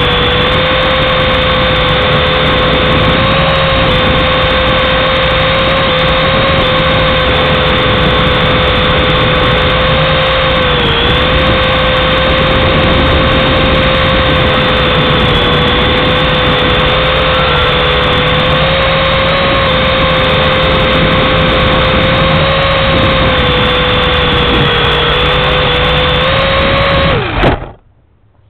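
Small electric motor and rotor of a toy RC helicopter whining steadily, heard up close from its onboard camera, the pitch wavering a little as it flies. The whine cuts off suddenly near the end as the motor stops.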